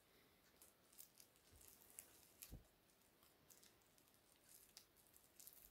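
Near silence with faint, scattered crinkles and rustles of a bubble-wrapped package being handled.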